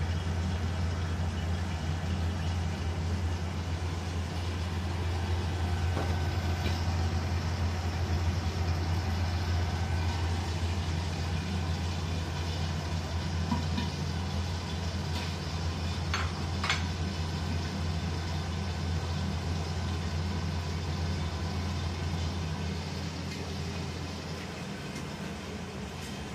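Steady low droning hum with a light hiss while a covered wok cooks over a gas stove burner, with a few brief light clinks about six seconds in and around sixteen seconds in.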